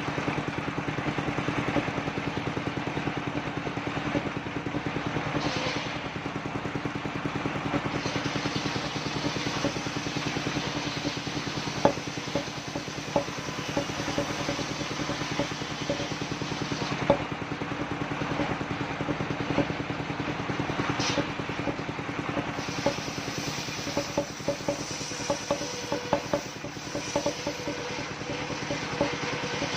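Engine of a mobile circular-saw rig running steadily, with scattered sharp knocks and rattles, more of them in the second half.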